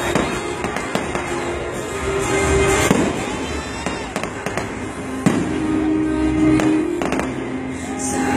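Several aerial fireworks bursts going off, the sharpest about 3, 5 and 7 seconds in, over loud music playing throughout.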